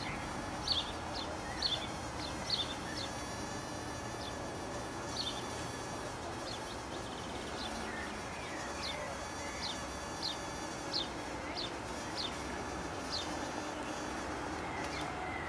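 Insects buzzing and chirping, with short high chirps about a second apart and stretches of a thin, high buzz.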